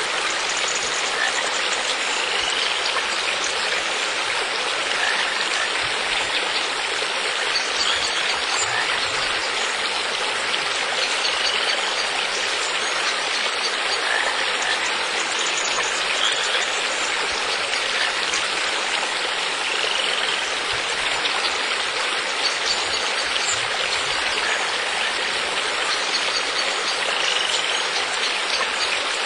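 Steady rushing of flowing water, like a stream, with brief faint chirps every few seconds.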